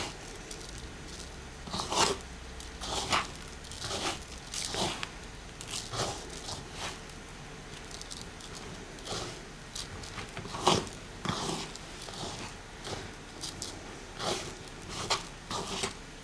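Couscous grains rubbed between hands and tossed in a wooden bowl to break up the clumps: short grainy rustling swishes at an irregular pace, about one or two a second.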